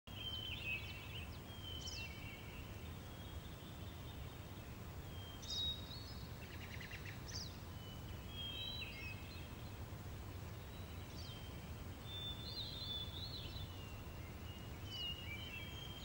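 Songbirds chirping and calling in a garden: short high notes and quick downward slurs every second or so, with a brief buzzy trill about six and a half seconds in, over a faint low steady rumble.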